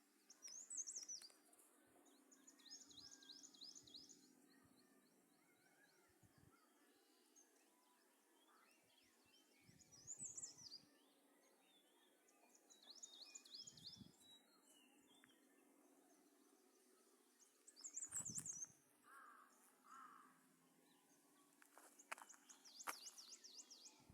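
A songbird singing faintly, repeating a phrase several times: a high sliding note, followed by a quick trill of rapidly repeated notes. A faint, steady background hum of the open air runs beneath it.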